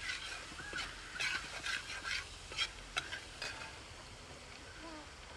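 Steel spatula scraping and stirring in a wide aluminium uruli as ginger, curry leaves and dried red chillies fry in oil, with a light sizzle; the ginger is browning. Quick scrapes for about three and a half seconds, then the stirring stops and only a faint sizzle remains.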